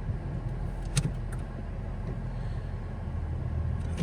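Toyota Corolla engine idling steadily after a start following three weeks of sitting, with a couple of sharp clicks about a second in.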